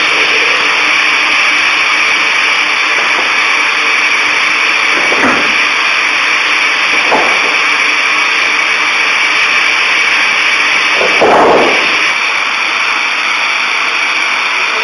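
Two-saw circular edging machine running steadily with its saw blades spinning, with brief swells in the noise about 5 and 7 seconds in and a louder one about 11 seconds in.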